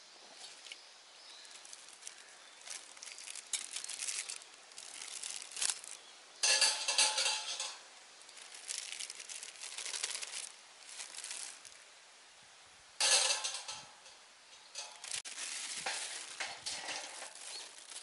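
Irregular rustling and crinkling handling noise as a folding stainless-steel fire stand is set up and loaded with pine cones and kindling, with two louder bursts of crinkling about six and a half and thirteen seconds in and a sharp click near the three-quarter mark.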